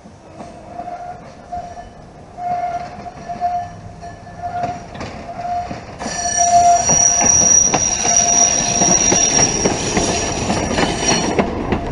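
Vintage CTA 'L' car's steel wheels rolling on curved track, breaking into a loud, steady high-pitched squeal about halfway in as it passes close by, with sharp clicks over the rail joints. Before the squeal, a mid-pitched tone pulses about every half second.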